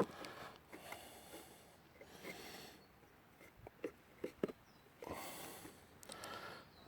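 Quiet handling of timber: faint rustles and a few light clicks about four seconds in, as a piece of wood is set down on top of a toothed timber connector.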